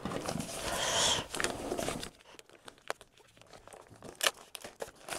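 Thin plastic packaging bag crinkling and rustling as it is pulled off a handheld drone controller: a denser rustle for about the first two seconds, then quieter, scattered sharp crackles.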